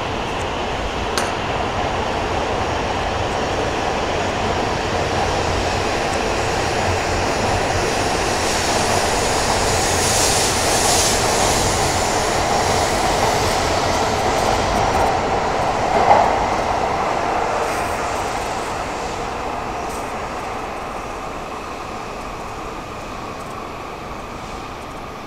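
E5 series Shinkansen train pulling out of the platform, its running noise building as it gathers speed and then fading as the last cars clear and it leaves. One sharp clank sounds about two-thirds of the way through.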